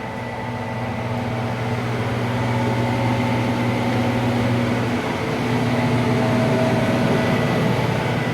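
Steady droning hum of a motor-driven fan with several steady tones, its pattern shifting slightly about five seconds in.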